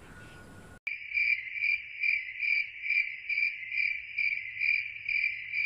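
Cricket chirping in an even, steady rhythm of about two to three chirps a second, starting abruptly about a second in. It is the stock 'crickets' sound effect used to mark an awkward silence.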